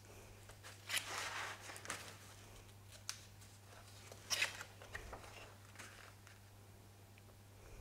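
Faint footsteps and scuffs on a gritty floor in a small empty room: irregular scrapes and clicks, the longest a scrape about a second in and another a little past four seconds.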